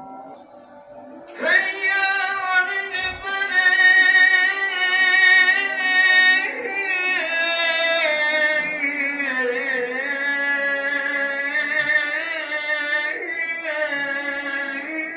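Music with sustained sung notes that waver and step in pitch, starting about a second and a half in.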